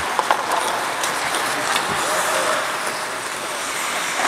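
Ice hockey play in an otherwise empty arena: a steady hiss of skates and rink noise, with scattered sharp clicks of sticks and puck and a faint distant shout about two seconds in.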